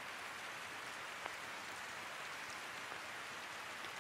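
Steady rain: an even hiss, with one slightly louder drop about a second in.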